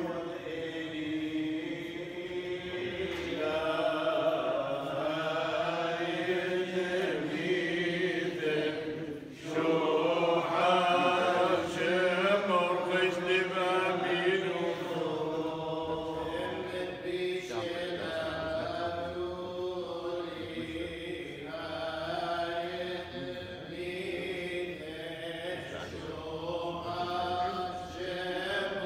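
Several male clergy chanting Chaldean funeral prayers together, unaccompanied, in a steady continuous line, with a short pause for breath about nine seconds in.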